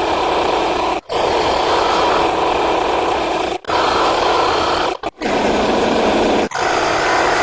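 Tiger growling and roaring in a series of short sound-effect clips spliced back to back, each one cut off abruptly by a brief silence: about five in a row.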